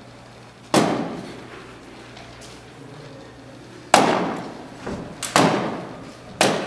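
Sharp bangs, each ringing out in a large hall: one about a second in, then four more close together in the second half.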